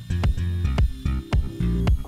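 Background music with a steady beat, bass and guitar.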